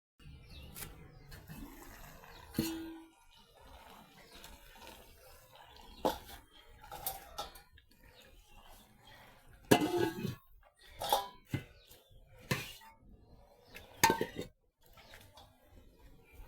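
Kitchen dishes and utensils clinking and knocking now and then, with one short ringing clink about two and a half seconds in.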